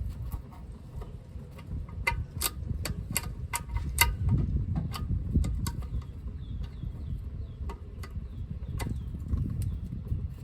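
Wind rumbling on the microphone, with irregular sharp metallic clicks and taps over the first half as a part is tightened under the car during an oil change.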